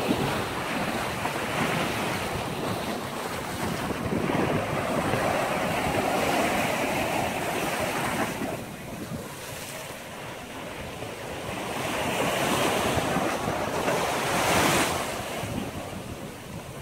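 Ocean surf breaking and washing against the base of a seawall, swelling and easing every few seconds, with wind buffeting the microphone.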